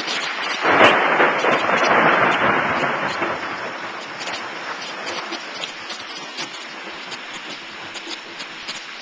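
Thunderstorm noise: a loud rushing surge about a second in that fades over the next few seconds into a steady hiss with scattered ticks.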